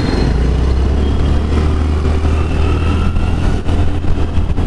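Scooter engine and road noise while riding, a steady low drone with no break.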